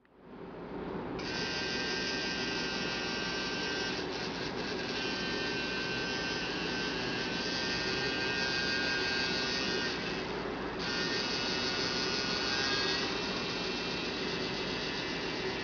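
Handmade rotary tattoo machine running. Its small electric motor spins the cam wheel and drives the needle bar with a steady high buzz. It comes up to speed in the first second or so, and its upper tones dip briefly about ten seconds in.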